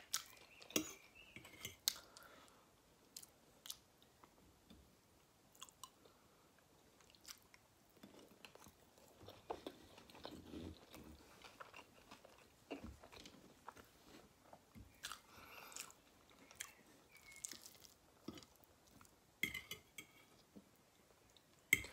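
Faint close-miked chewing of soft food, meatloaf and a boiled baby potato, with scattered wet mouth clicks.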